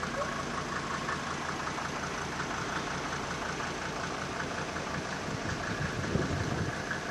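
Car engine running steadily at low speed, a constant hum with road noise.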